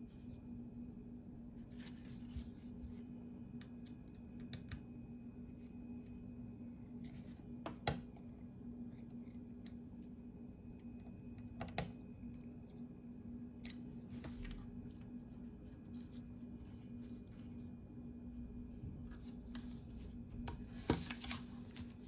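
Scattered small metal clicks and taps from a screwdriver and a metal hard-drive caddy being handled, a few sharper clicks standing out, the loudest near the end, over a steady low hum.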